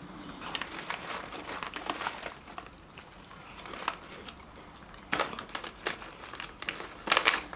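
Plastic snack packaging crinkling and rustling, with crackles and crunches as a snack is handled and eaten; louder crackles about five seconds in and near the end.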